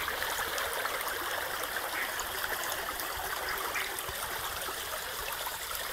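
Shallow stream flowing steadily over a small ledge between reeds, an even rushing and babbling of water.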